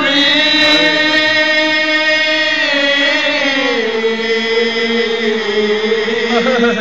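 Three men chanting a soz, an unaccompanied Urdu mourning elegy, together into a microphone. They hold long, slightly wavering notes and step down to a lower note about halfway through.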